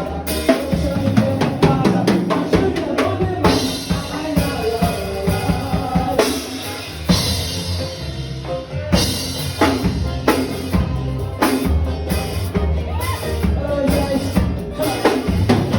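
A band playing a forró song live, the drum kit to the fore with steady kick drum, snare and rimshot hits over bass and other pitched instruments.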